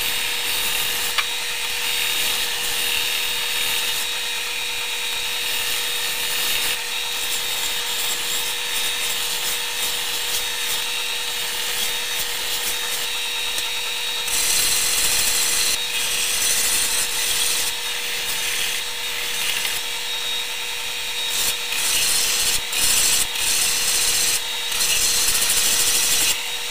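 Stationary bench belt sander running with a steady hum while the edges and corners of a wooden canoe paddle blade are sanded against the belt. The hiss of wood on the abrasive swells and fades as the blade is pressed and moved, louder in stretches from about halfway through.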